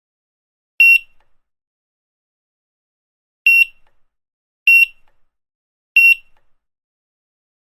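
Supermarket checkout barcode scanner beeping four times at uneven intervals, each a short, high, single-pitch beep.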